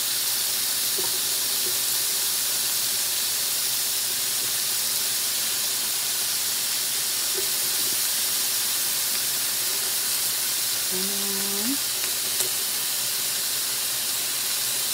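Steady hiss of food sizzling on a hot electric grill plate, with a brief voice sound about eleven seconds in.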